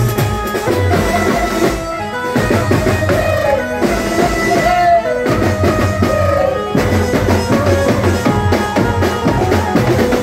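Loud live band music: drums keeping a dense beat under a wavering melody line.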